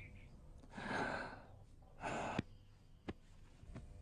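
Two short, faint breaths from a person, about one and two seconds in, then a small click.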